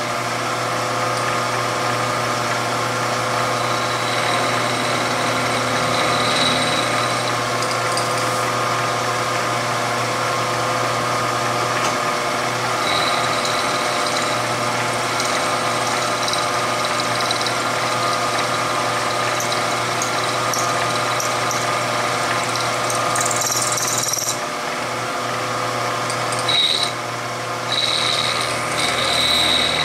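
Milling machine spindle running steadily while an end mill cuts a cartridge seat into a stainless steel Smith & Wesson Model 686 revolver cylinder, with a thin high tone coming and going as the cutter bites.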